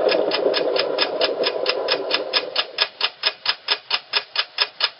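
Clock or stopwatch ticking sound effect: fast, even ticks, about four and a half a second, for a countdown intro. A droning hum underneath fades out about halfway through, leaving the ticks alone.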